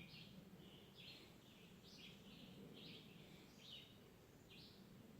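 A songbird calling faintly in a quick series of short, high chirps, about two a second.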